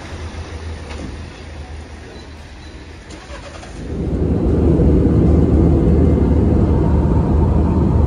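Low engine and road rumble heard from inside a moving vehicle, becoming much louder and steady about four seconds in.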